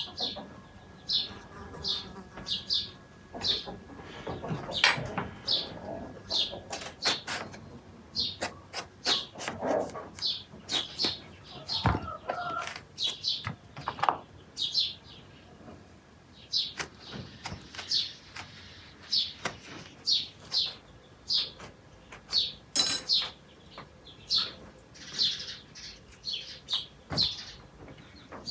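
A small bird chirping over and over, about one short high chirp a second, over sharp clicks and scrapes of a knife and a metal spoon hollowing out eggplants.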